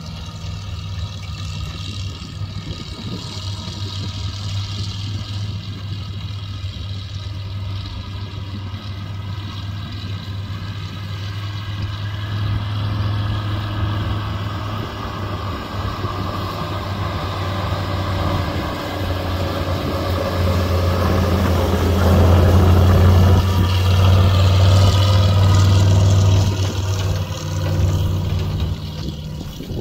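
1973 Chevrolet C60 grain truck's engine running as the truck drives across a field, a steady low hum that grows louder as it comes near, loudest about two-thirds of the way through, then dropping off near the end.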